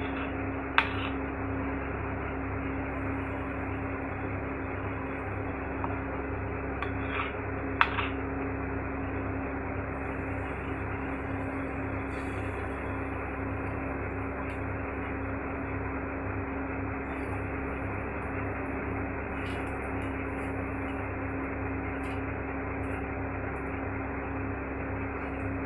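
Steady kitchen hum and hiss, with two sharp clinks of a metal spoon against the iron tawa, about a second in and near eight seconds, as pancake batter is poured and spread.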